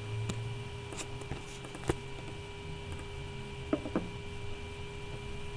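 A handful of sharp computer mouse clicks, the loudest about two seconds in and two in quick succession near four seconds, over a steady electrical hum.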